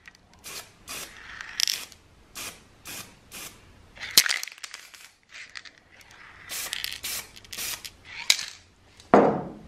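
Aerosol spray can hissing in a string of short bursts, roughly one every half second to second, sprayed down through a gear's keyway to mark it. A sharp click about four seconds in.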